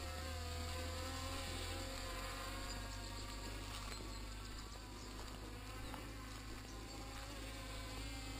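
Flyduino Nanoquad quadcopter's motors and propellers buzzing overhead, a thin whine whose pitch wavers up and down as the throttle changes, over a low steady rumble.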